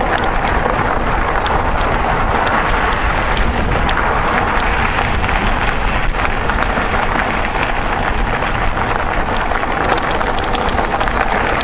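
Mountain bike riding over a gravel track: a steady rush of tyre noise with frequent small clicks and rattles.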